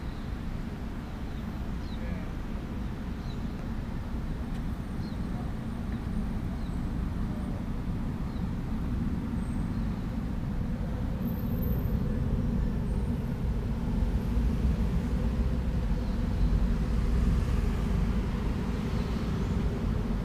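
Low, steady rumble coming out of an old street ventilation shaft, growing louder in the second half as the microphone nears its slots, with a faint hum joining partway through. The uploader suspects it vents an underground sewer gallery rather than piped gas, though he is unsure.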